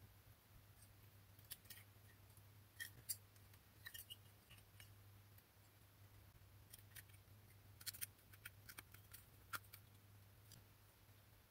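Near silence over a low steady hum, with a dozen or so faint scattered clicks: an LED bulb's metal E27 screw cap, wires and plastic housing being handled and pressed together.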